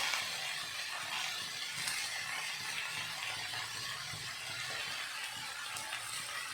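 Potatoes and green beans frying in oil in a pan, a steady sizzle.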